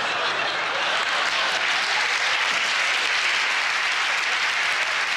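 Live theatre audience applauding steadily.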